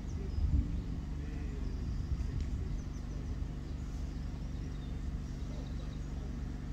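Outdoor field ambience: a steady low rumble with a few faint high bird chirps.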